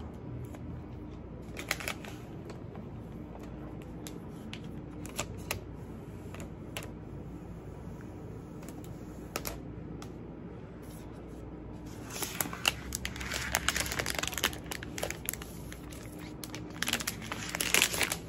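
Protective paper wrap being peeled off an iPad and crinkling, in a burst about twelve seconds in and again near the end. Scattered small clicks and taps of handling come in between.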